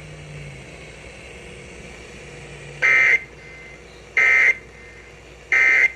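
Emergency Alert System end-of-message data signal on FM radio: three short, identical bursts of shrill digital tones about a second and a half apart, which mark the end of the alert. They follow about three seconds of quiet background.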